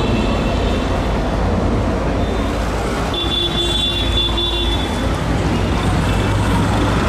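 Steady low rumble of a tram and street traffic. About three seconds in, a thin high-pitched tone sounds for about a second and a half.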